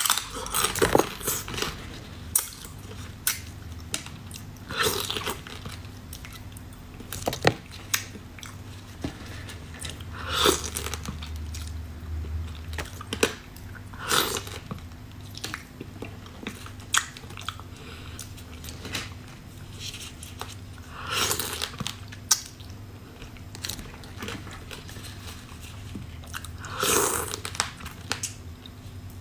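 Close-miked eating of spicy crab: biting into the shell pieces and chewing, with sharp crunches and clicks and short wet mouth sounds coming in irregular bursts every second or two.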